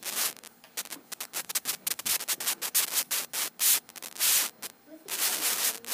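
Rubbing and scraping noise close to the microphone: many short scrapes, with longer, louder stretches about halfway through and again near the end.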